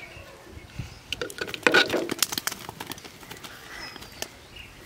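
A caught fish slapping and splashing as it goes into a plastic jar of water: a flurry of quick taps and knocks over about two seconds, loudest about two seconds in.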